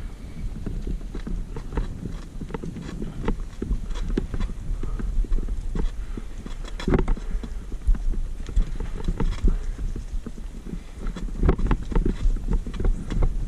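Mountain bike clattering over a rough dirt trail: irregular knocks and rattles from the frame and chain as the tyres hit bumps, over a steady low rumble.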